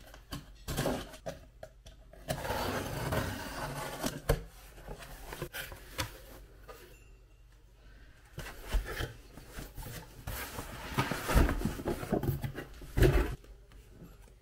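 Cardboard shipping box being unpacked: a box cutter slicing the packing tape with a long scratchy cut, then the flaps scraping open and a product box slid out, with rustling, knocks and a few sharp thumps.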